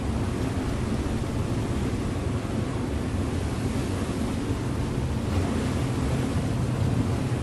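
River motor ship under way: its engine hums steadily underneath water rushing along the hull, with wind buffeting the microphone.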